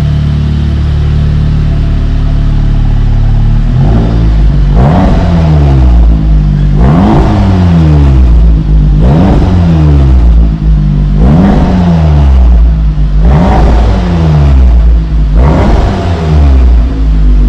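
APR Stage 2 tuned Audi S3's turbocharged 2.0-litre four-cylinder through a Remus exhaust, idling for a few seconds, then revved six times in a steady rhythm, each rev rising and falling in pitch about two seconds apart.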